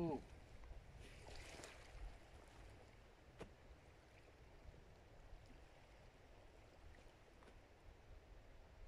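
Near silence: a faint low rumble of outdoor air, opening with a short falling tone. A soft rustle follows about a second later, then a single click, as the angler moves up to the rod stand.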